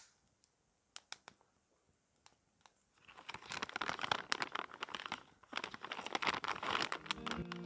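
A few scattered clicks, then from about three seconds in a plastic bag of jerky crinkled and rustled by hand, with a short break partway.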